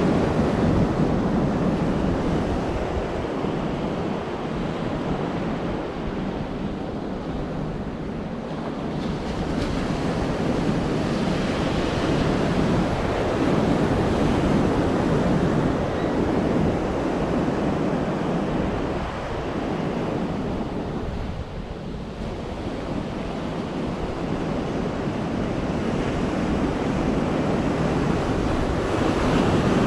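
Sea surf washing onto the beach, a steady rushing that swells and eases, with wind rumbling on the microphone.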